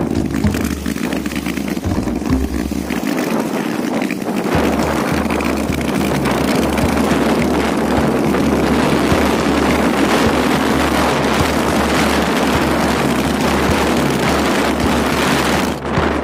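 Wind buffeting the phone's microphone on a moving motorcycle, a steady rush of air with the motorcycle's running noise underneath. The low rumble of the buffeting drops out briefly a few seconds in.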